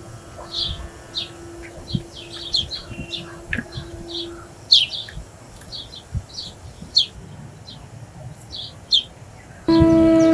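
Birds chirping: scattered short, high chirps, one or two a second. A held musical note fades out about halfway through, and background music comes back in near the end.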